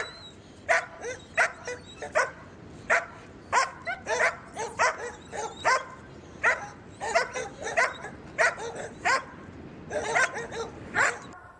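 Dog barking repeatedly in short barks, about two a second with some quick runs of several, stopping just before the end.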